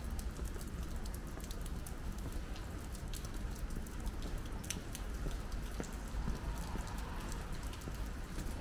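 Light rain falling, with many scattered drops ticking sharply over a low steady rumble.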